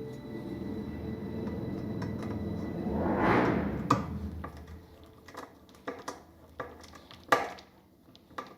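Background music that fades out about halfway through, then a handful of sharp metallic clinks and knocks from the metal mesh rack's parts being handled and fitted during assembly, one louder knock near the end.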